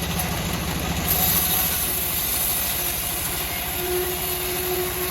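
Homemade bandsaw sawmill running, its engine giving a steady low pulsing; about a second in a high hiss joins and continues to near the end.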